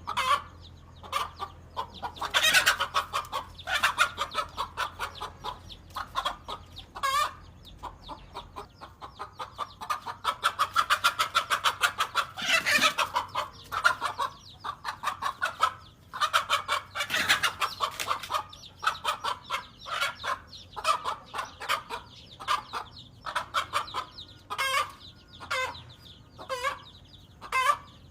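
A mother hen making rapid, repeated alarm clucks and cackles, with louder fast runs of calls a few times. This is the agitated calling of a hen defending her chicks from a king cobra.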